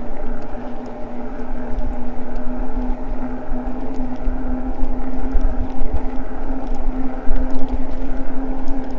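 Eahora Juliet e-bike riding along: gusty wind rumble on the microphone over a steady hum from the bike's motor and tyres.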